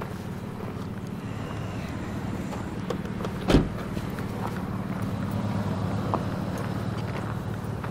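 Car engine idling steadily, with one sharp thump about three and a half seconds in and a faint click a little later.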